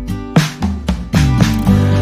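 Background music: guitar with percussive hits, a deep bass coming in about half a second in.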